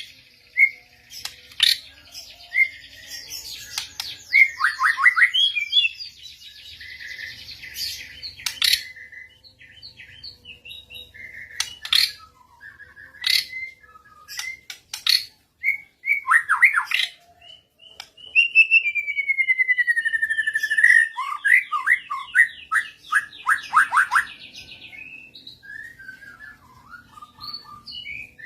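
Murai (magpie-robin) song: loud, varied whistles, chirps and trills in phrases with short pauses. A long falling whistle comes about two-thirds through, followed by a quick run of repeated notes.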